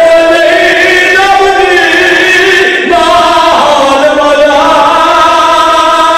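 A zakir's melodic, chanted recitation: one man's voice holding long drawn-out notes and gliding between them, with a short break for breath about three seconds in.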